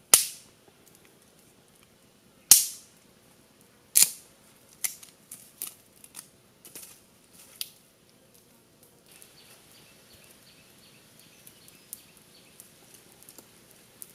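Machete blade chopping into bamboo: three sharp cracks about a second and a half apart, then several lighter, quicker knocks over the next few seconds.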